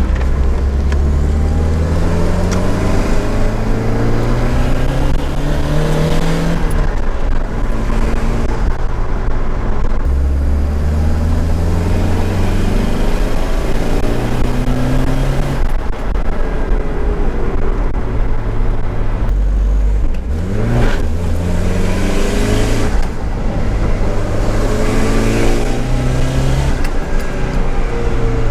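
Nissan 200SX S13's CA18DET turbocharged 1.8-litre four-cylinder accelerating through the gears, its note rising on each pull and dropping at every shift, several times over. There is a fluttering turbo whoosh when the throttle closes between pulls.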